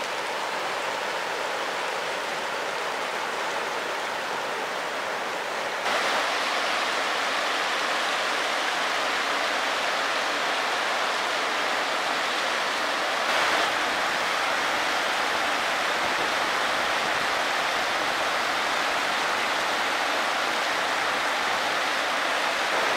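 River rapids rushing over boulders: a steady rush of white water, which steps up in loudness about six seconds in and swells briefly around the middle.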